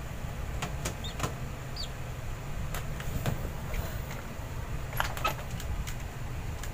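Scattered light clicks and knocks of a pigeon loft being handled while a squab is put back into its nest, over a steady low hum.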